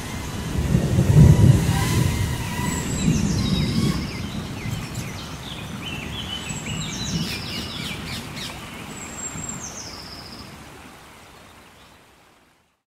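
Nature ambience of birds calling, the same high falling trill coming back several times, over a low rumble of thunder in the first few seconds; the whole fades out near the end.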